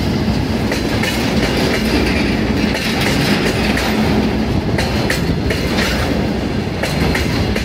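Freight train of tank wagons rolling past: a steady loud rumble and rattle of the wagons, with repeated clicks as the wheels run over rail joints.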